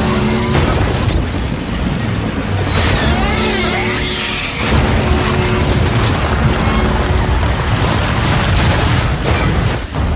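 Film action sound mix: heavy booms and crashes of cars and machinery being smashed over dramatic orchestral music, with metallic screeching about three to four seconds in.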